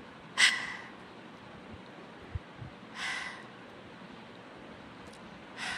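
A woman breathing out three times through an open mouth, voicelessly: the glottal fricative /h/ on its own, with no vocal-cord vibration. Each breath is short and spaced a couple of seconds apart, the first the loudest.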